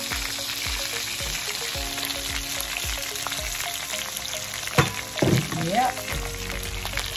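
Chicken pieces and sausages sizzling and crackling steadily in a stainless steel skillet, frying in their own rendered fat with no oil added. A single knock sounds about five seconds in.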